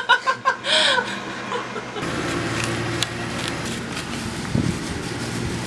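Steady outdoor background noise with a low hum, starting suddenly about two seconds in.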